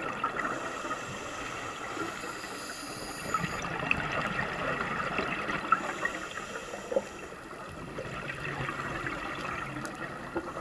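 Underwater sound picked up by a GoPro in its waterproof housing: a steady muffled water hiss sprinkled with small clicks and crackles, with a few sharper pops.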